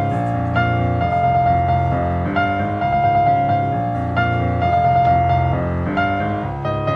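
Background music led by piano, with sustained chords changing every second or so.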